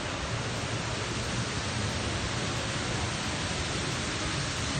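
Steady rushing noise, even and unbroken, with no distinct sounds standing out of it.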